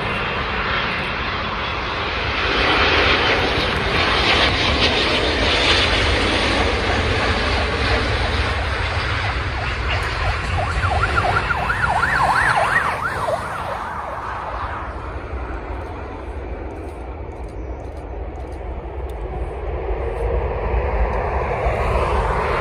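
Jet engines of a landing twin-engine airliner: loud engine noise builds about two seconds in and fades after about thirteen seconds, then rises again near the end. An emergency vehicle's siren wails briefly over it, rising and falling a few times just before the engine noise fades.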